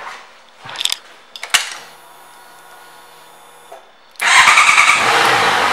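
A 2016 Honda CBR650FA's ignition is switched on with the key: a couple of small clicks, then a faint steady hum. About four seconds in, its 649 cc inline-four starts with a sudden rise in loudness and keeps running steadily.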